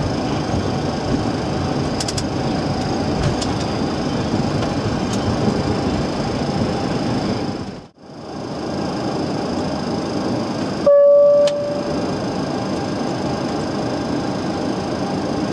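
Steady cockpit noise of a Boeing 737-300 taxiing, with a thin high whine through it and a few light clicks near the start. The sound dips briefly to silence about eight seconds in, and about three seconds later a loud single-tone beep sounds for about half a second.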